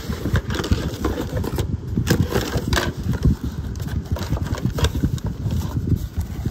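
Cardboard box flaps and a white paper packing sheet rustling and crinkling as a package is unpacked, with a few sharper crackles, over a low, irregular rumble.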